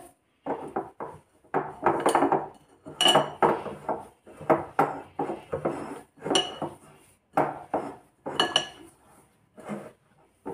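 Hands kneading crumbly besan nankhatai dough in a cut-glass bowl: irregular pressing and scraping against the glass, roughly once a second, with light clinks from the bowl.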